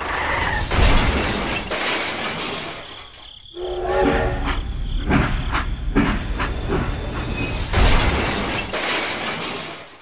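A toy train on its track, with loud clattering impacts of plastic toy parts and tumbling toy bricks as a wagon tips over, and a short horn-like tone about four seconds in.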